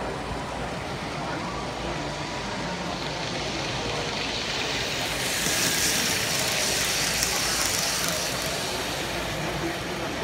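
N-scale model trains rolling along the layout track: a steady rolling hiss of small wheels and motors. It swells for a few seconds mid-way as a fast passenger train passes close, then eases back.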